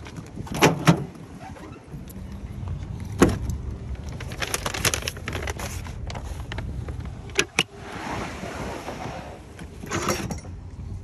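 Pickup truck's tailgate latch clunking open, then a string of knocks, two sharp clicks and a rustle as gear is handled in and around the truck bed, over a low steady rumble.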